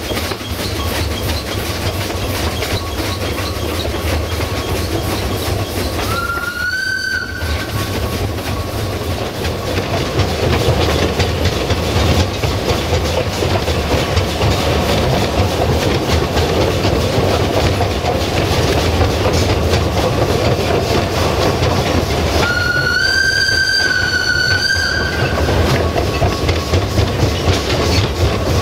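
Narrow-gauge train running, its wheels clattering steadily over the rails, while steam locomotive 762.209 sounds its steam whistle twice: a short blast of about a second and a half about six seconds in, and a longer, slightly wavering blast of about two and a half seconds some twenty-two seconds in.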